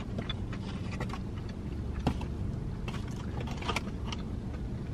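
Chewing a mouthful of a crispy chicken sandwich, with scattered small clicks and crinkles from the wrapper and cardboard box, over a steady low hum in the car cabin.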